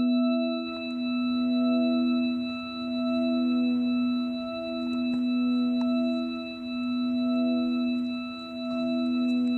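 Background music: a sustained ringing drone of several held tones, like a singing bowl, swelling and fading about every two seconds.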